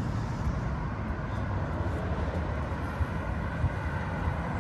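Steady outdoor background noise: a low rumble with a fainter hiss above it, and a couple of small bumps in the second half.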